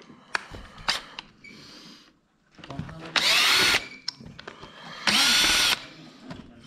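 Cordless drill-driver running in two short bursts about two seconds apart, backing screws out of a cover plate on a Lombardini diesel engine, with light metal clicks of handling before the first burst.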